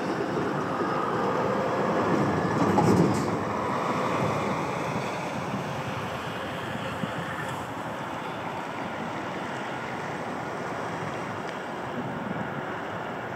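CAF Urbos 100 tram approaching at low speed from a distance, heard as a steady rumble of wheel and running noise. There is a louder swell of rumble about two to three seconds in.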